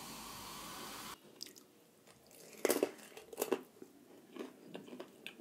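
Cola poured into a glass mug, a steady fizzing hiss that cuts off abruptly about a second in. Then close-miked eating: a couple of loud crunching bites followed by chewing and small mouth clicks.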